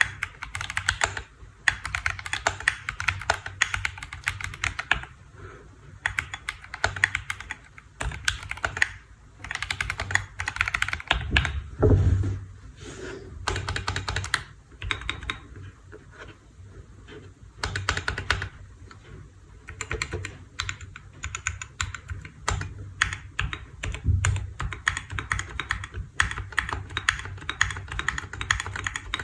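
Typing on a KBDfans D65 mechanical keyboard: fast runs of key clacks in bursts with short pauses, and one heavier thud about twelve seconds in.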